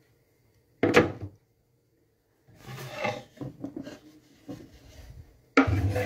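Household knocks and rubbing: a sharp knock about a second in, scraping and shuffling sounds, then a louder clatter near the end.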